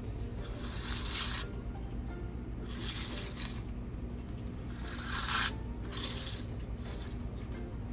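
Three short rubbing, scraping sounds as hands work the plastic recoil-starter parts of a Skilsaw 1616 chainsaw, spaced a second or two apart.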